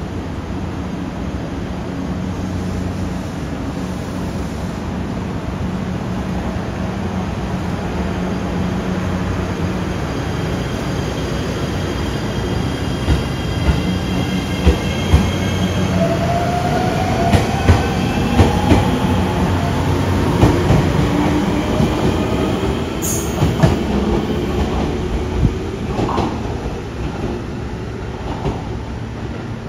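JR Shikoku 7200 series and 7000 series electric train pulling away: a low hum, then the inverter-driven traction motors whining higher and higher in pitch as the train gathers speed. As the cars pass, a run of sharp wheel clacks over the rail joints comes through.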